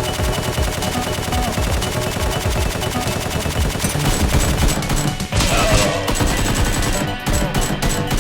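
Rapid, continuous automatic gunfire with background music.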